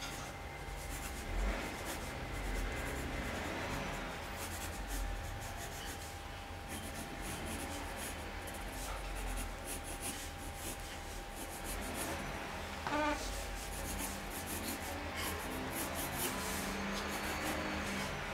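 Graphite pencil scratching across drawing paper in a series of short sketching strokes.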